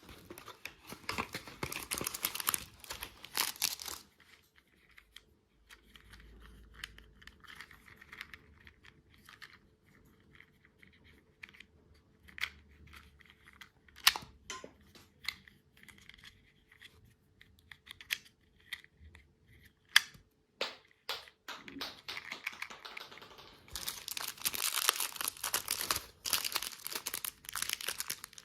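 Plastic candy packaging crinkling and tearing in two busy stretches, one at the start and one near the end, with scattered sharp taps and clicks in between.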